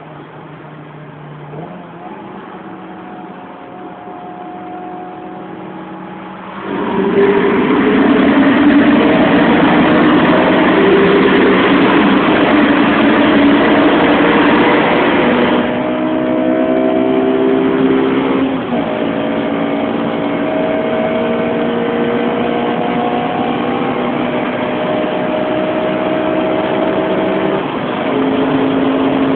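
Honda S2000's four-cylinder engine, fitted with a K&N air filter and a self-built exhaust, running fairly quietly at first. A few seconds in it suddenly opens up under hard acceleration and runs loud. The sound eases a little later on, with two brief breaks where the engine note steps.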